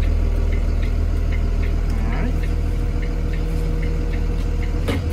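Cummins diesel engine of a Thomas Built EFX school bus idling, heard from the driver's seat as a deep, steady hum while the bus creeps forward in drive. A light ticking, about three a second, runs alongside.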